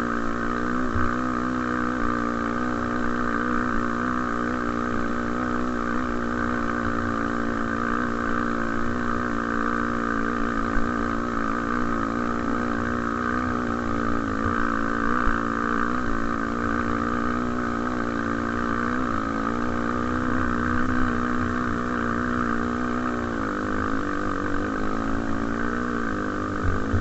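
Honda XR250 Tornado's single-cylinder four-stroke engine running under way at fairly steady revs, the pitch wavering a little as the throttle changes. The engine note drops for a moment near the end, then picks up again.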